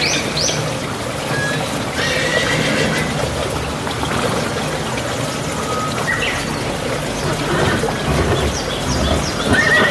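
Horse neighing, with whinnying calls over a steady outdoor background noise.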